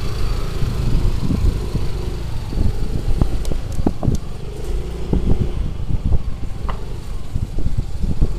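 Motor scooter riding slowly, its engine running under a dense low rumble of wind on the microphone, with irregular thumps throughout.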